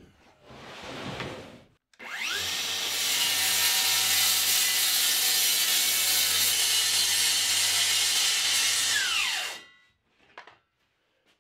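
Handheld circular saw cutting through a plywood sheet along a straight-edge guide. The motor whines up about two seconds in, cuts steadily for about seven seconds, then winds down and stops, followed by a couple of faint knocks.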